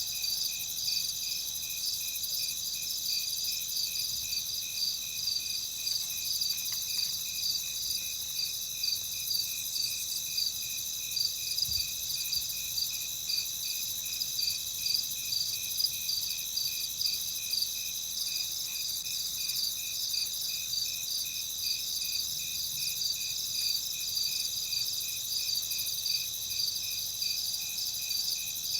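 Night ambience of crickets chirping in a steady chorus: high-pitched trills layered with regular, evenly repeating chirps that never let up.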